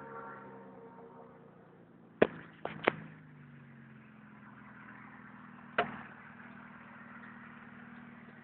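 A 1993 Mazda MX-6's 2.5-litre V6, with no catalytic converter, running at low revs heard from inside the cabin; the note eases down slightly, then holds steady. A few sharp knocks come about two seconds in, and one more near the six-second mark.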